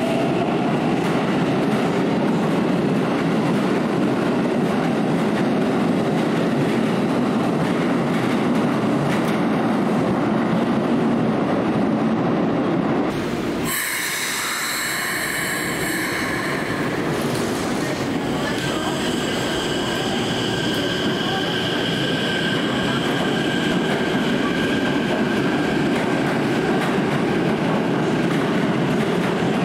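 Keikyu 1000-series electric trains in an underground station: the first runs along the platform with a steady rumble. After a cut about halfway through, a second one gives a brief high hiss and then pulls away, running with a steady high-pitched squeal or whine over the rumble.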